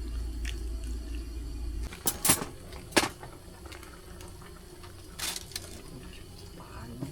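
Metal cooking utensils knocking and clinking against a pot a few times, over a low steady hum that stops about two seconds in.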